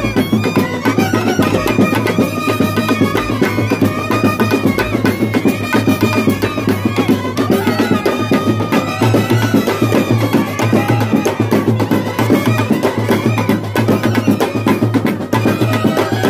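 A Kerala 'band set' brass band playing live: trumpets and euphoniums carry a melody over fast, busy snare and bass drumming.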